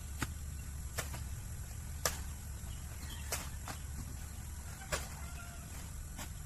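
A series of sharp knocks at uneven intervals, roughly one a second, over a steady low rumble.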